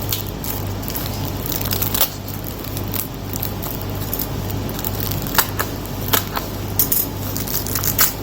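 A package being unwrapped by hand: irregular crinkling, crackling and sharp clicks of cardboard and wrapping, over a steady low hum.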